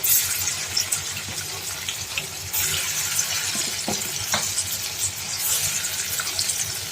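Marinated chicken pieces frying in hot oil in a kadai: a steady sizzle with scattered crackles and pops.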